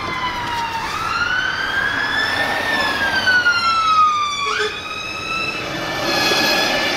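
Fire engine siren wailing, its pitch sweeping slowly down, up and down again, with a quick upward sweep about four and a half seconds in. A steadier tone comes in near the end.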